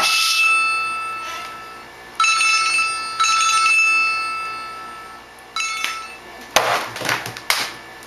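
Telephone ringing: a steady ring that fades away, repeated three more times, the last one cut short. It is followed by a few sharp knocks and rustles of handling near the end.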